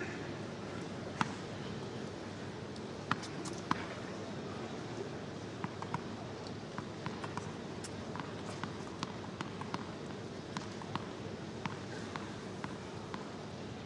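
Tennis stadium ambience between points: a steady crowd murmur with scattered sharp taps and knocks, the strongest about a second in and twice a little after three seconds.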